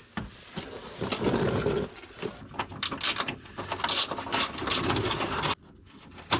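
Hand tools working on metal: irregular, rapid clicking and clattering that stops abruptly near the end.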